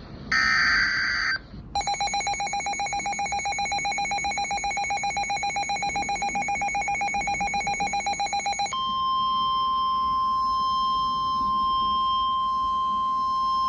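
Emergency Alert System tones: the last of the three screeching SAME data bursts, then the harsh two-tone EAS attention signal for about seven seconds. About nine seconds in it switches to a steady single-pitch alert tone, which carries on to the end.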